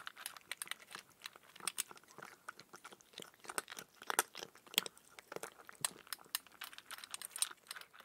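A cat chewing dry kibble: a fast, irregular run of crisp crunches, several a second.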